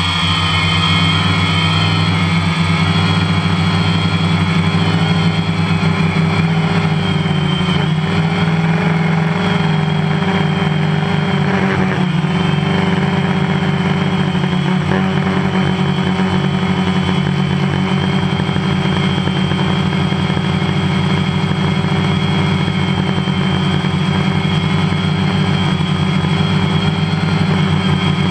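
DJI Phantom quadcopter's four electric motors and propellers whirring, heard up close from the drone's own camera. The pitch shifts a little at the start as it climbs, then holds steady as it hovers high up. The drone has lost contact with its controller and is in its failsafe: climbing and trying to find home by GPS.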